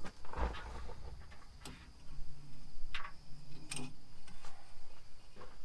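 Oil dipstick being pulled from its tube on a Chevy 350 engine and handled for an oil check: several light metallic clicks and scrapes, a second or so apart.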